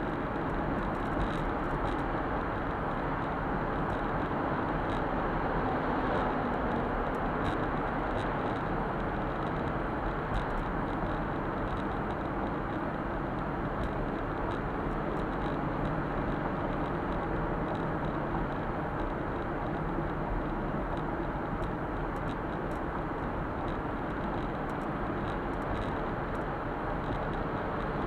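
Suzuki Super Carry kei truck driving steadily, heard from inside the cab: its small three-cylinder engine and tyre and road noise as an even rumble.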